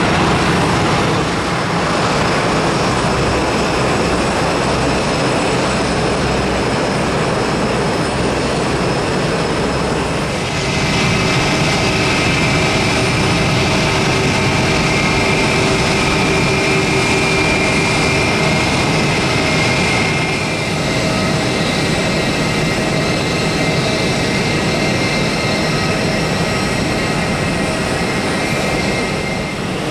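Airbus A320 jet engines running: a steady rumble as the airliner rolls out along the runway after landing, then, from a sudden change about ten seconds in, a closer steady engine whine with high tones over the rumble as it taxis.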